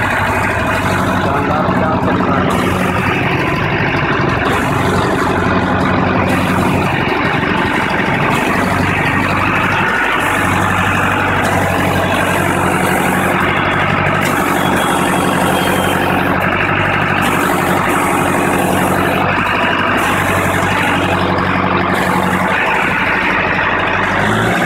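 Mahindra Arjun Novo 605 DI tractor's diesel engine running while it powers the hydraulic front loader as the grab arm is raised and moved. The sound is uneven at first, then settles into a steady engine hum about ten seconds in.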